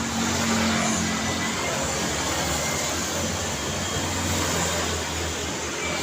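Road traffic noise: a steady rush of tyres and engines from passing cars, with a low engine hum underneath.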